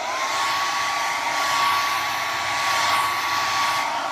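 Phil Smith Be Gorgeous hair dryer running on its hottest setting: a rush of blown air with a steady motor whine. The whine rises briefly at the very start as the motor spins up, then holds level.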